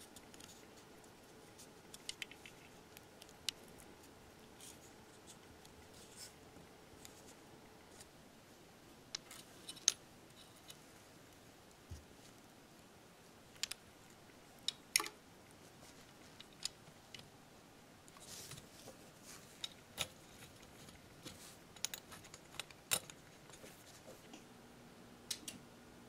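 Irregular small clicks and light taps from hands working a plastic 80 mm computer fan: pressing rubber isolation pads onto it, handling its lead and fitting it into a radio transceiver's metal chassis.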